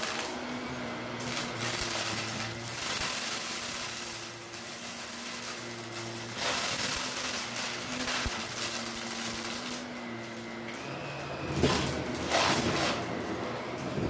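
Shark Navigator upright vacuum running on carpet, pushed back and forth so its motor hum and suction hiss swell and fade with each stroke. Near the end it crackles and rattles as it sucks up fluff and small plastic debris.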